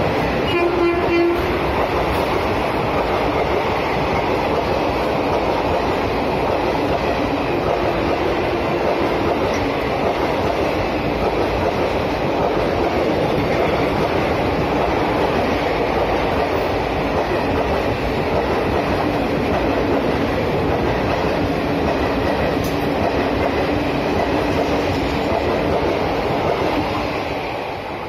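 Express passenger train running through a station at speed without stopping. The WAP-4 electric locomotive's horn dies away in the first second or so, then the coaches pass with a steady loud rush that fades near the end as the last coach goes by.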